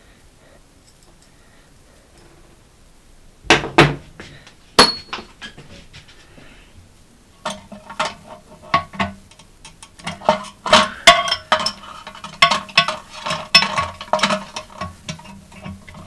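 Hard objects knocking and clinking as tools and toilet tank parts are handled: two sharp knocks, then from about halfway through a fast, irregular run of small clicks and clinks.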